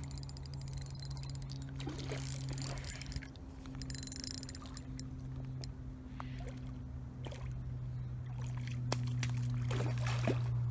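A steady low mechanical hum, like a distant engine or motor, with scattered faint clicks and ticks over it.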